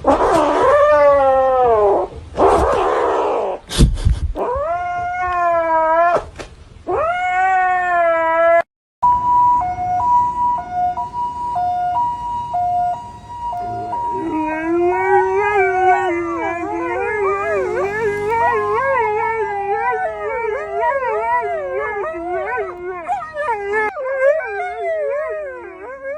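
Dog howling in long, wavering rising and falling notes. After a brief break about nine seconds in, a two-tone siren alternates high and low notes, and from about fourteen seconds a dog howls along with it.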